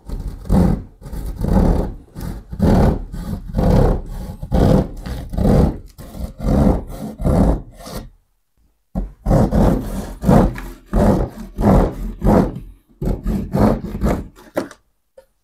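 Pad saw cutting through plasterboard in quick back-and-forth rasping strokes, about two a second, with a pause of about a second halfway through before the sawing starts again.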